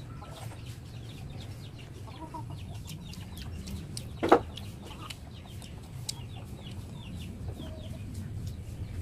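Chickens clucking, with a string of short, high, falling calls repeating throughout, and one sharp knock about four seconds in.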